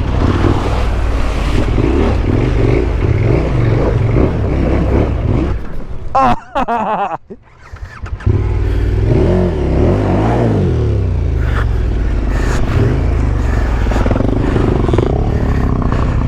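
KTM 1290 Super Adventure S's V-twin engine revving under load while riding into a mud and water crossing, its pitch climbing and falling as the throttle is worked. The sound cuts out almost completely for a couple of seconds about six seconds in, then the revving returns.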